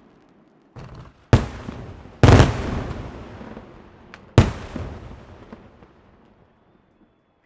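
Fireworks going off: a few loud bangs with a smaller crack or two between them, each followed by a long echoing tail. The sound dies away near the end.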